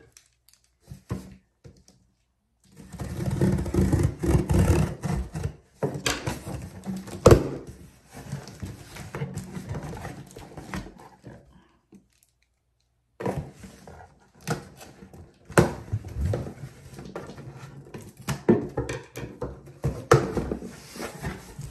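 Cardboard shipping box being opened by hand: packing tape pulled and peeled, and cardboard flaps scraping and rustling, with one sharp knock about a third of the way in and a brief silent pause around the middle.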